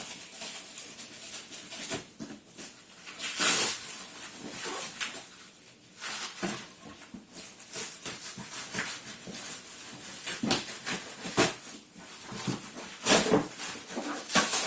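Parcel packaging being torn open and handled: irregular rustling, scraping and ripping of wrapping material in quick bursts.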